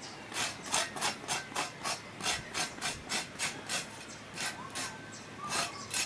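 Rhythmic scraping strokes on bare dirt ground, about three a second, from a tool worked by a person bent over. The strokes break off about four seconds in, and a few more follow.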